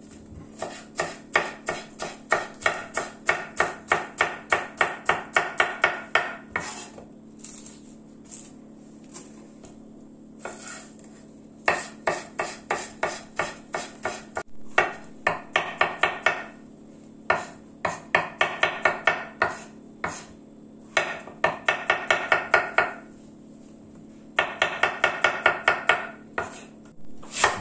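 Kitchen knife chopping on a wooden cutting board, dicing green pepper and then slicing mushrooms. It comes in quick runs of even knocks, about four a second, with short pauses between the runs.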